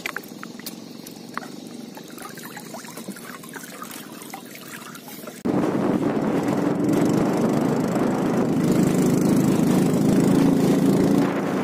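Water trickling and splashing with small knocks as a wire-mesh prawn trap is handled and lowered into the river. About five seconds in, a louder steady boat engine noise with rushing water cuts in and carries on.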